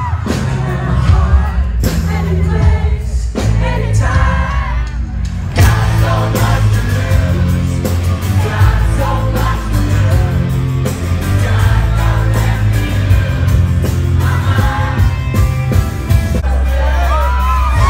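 A rock band playing live through a concert PA: a lead singer's voice over loud bass, guitar and drums, heard from the crowd.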